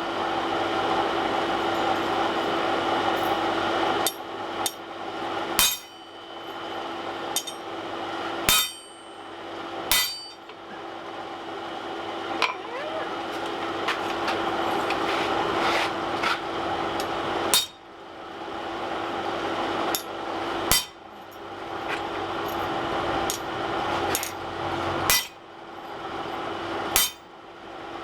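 A hand hammer striking steel on the anvil, a dozen or more ringing blows at an uneven pace about one to two seconds apart, while the blacksmith tries out his rivet-heading tools. A steady hum from the shop runs underneath.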